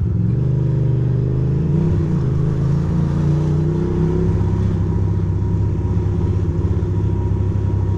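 A 2006 Ducati Monster 620's air-cooled L-twin engine running at low road speed. Its pitch rises gently over the first few seconds as it pulls ahead, then holds steady.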